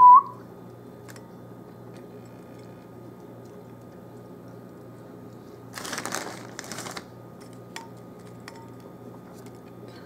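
Mini marshmallows being set by hand onto a graham cracker on a plate: a few faint, soft taps over a steady low hum. About six seconds in comes a second or so of louder rustling.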